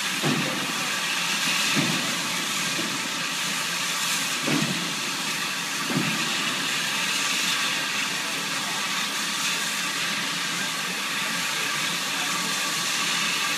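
Steam locomotive No. 734 hissing steadily as steam vents from the top of its boiler. A few dull low thumps sound over the first half.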